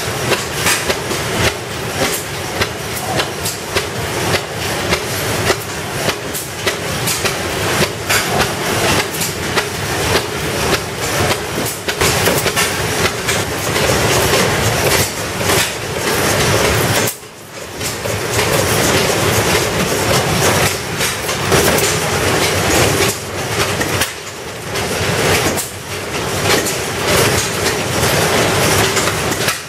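Antique hit-and-miss stationary gas engines running, several at once: a dense, uneven clatter of exhaust pops and mechanical clicks from the single-cylinder, hopper-cooled engines. The sound dips briefly a little over halfway through.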